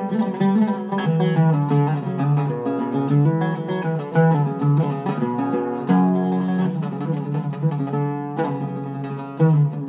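Iraqi-style Zeryab oud with a cedar soundboard and rosewood back, played solo: a run of quick plucked notes, each ringing briefly, with sharper accented strikes about six seconds in and again near the end.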